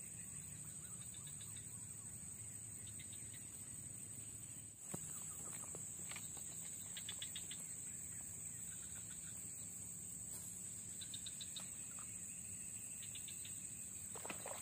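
Faint outdoor ambience: a steady, high-pitched insect drone, with short clusters of faint ticks or chirps now and then.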